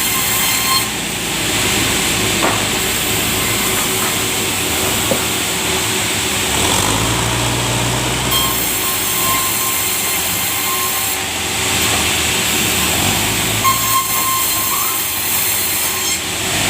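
Sawmill saw running and cutting through a large log of soft timber, a loud steady mechanical noise with a constant hum and a high hiss.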